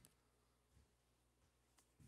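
Near silence: room tone with a faint steady low hum and a few faint soft clicks.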